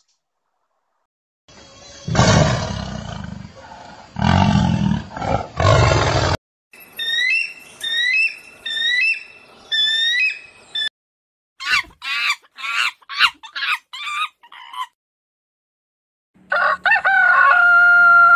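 A run of different animal calls one after another: three loud, deep roars, then a quick series of short rising-and-falling chirps, then a burst of rapid short calls, ending with a long held ringing call.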